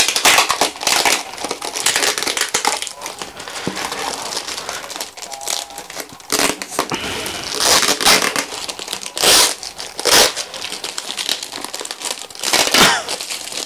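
Plastic parcel wrapping crinkling and rustling as hands work it open. Several louder, sharp rasps come in the second half as tape is pulled off.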